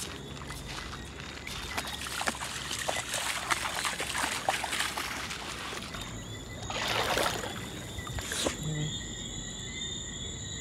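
Feet and paws wading through shallow seawater over sand and seagrass, with irregular sloshing and splashing that comes in clusters. Faint steady high tones run underneath.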